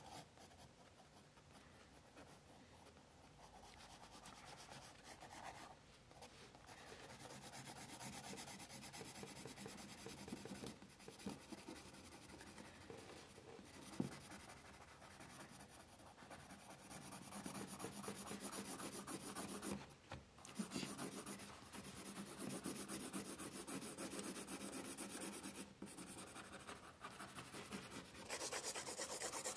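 Graphite pencil scratching on drawing paper in rapid back-and-forth shading strokes, faint and continuous, growing a little louder in the second half.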